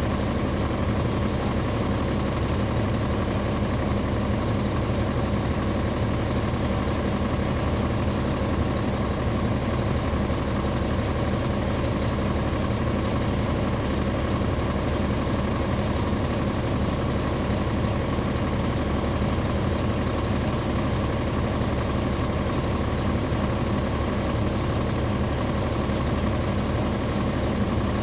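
The Caterpillar C13 diesel engine of a NABI 40-SFW transit bus running steadily, heard from the back of the passenger cabin. Its pitch holds level throughout, with no revving or gear changes.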